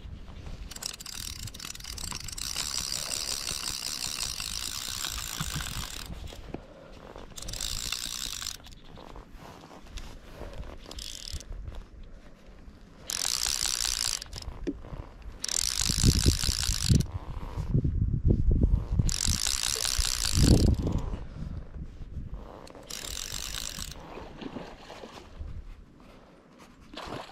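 Fly reel's click-and-pawl ratchet buzzing in repeated runs of one to several seconds as line goes on and off the spool while a hooked rainbow trout is played on the fly rod.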